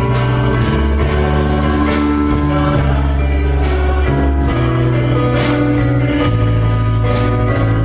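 Contemporary Christian worship song: band accompaniment with sustained bass and chords and a steady beat, with singing over it.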